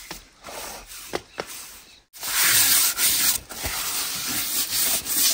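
Gloved hand rubbing and scraping flour around the inside of a stone mortar. There are quieter rubbing sounds and a couple of light knocks at first, then a loud, even, gritty rubbing that starts abruptly about two seconds in.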